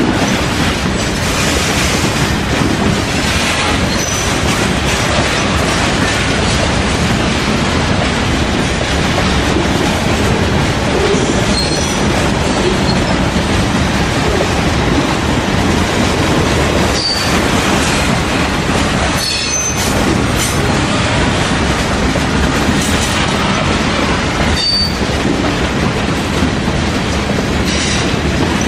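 Freight train of covered hopper cars rolling past at close range: a steady rumble and rattle of steel wheels on the rails, with short high wheel squeals now and then.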